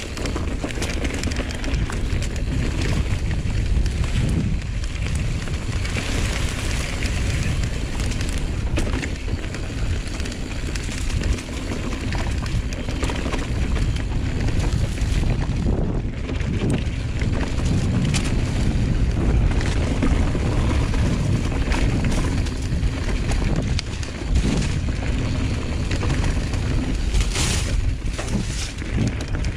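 Giant Reign enduro mountain bike riding down a dirt trail: wind buffets the GoPro's microphone over a steady rumble of tyres, with constant rattling and clicking from chain and frame over the bumps.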